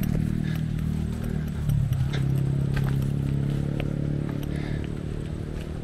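An engine, unseen, hums steadily at a low pitch and slowly fades, with scattered scrapes and clicks of footsteps on a dirt path.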